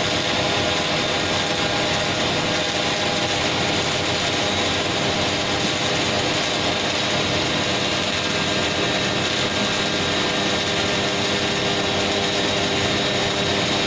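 Automatic pipeline welding equipment running: a steady mechanical hum with several held tones over an even hiss, with no change in pace.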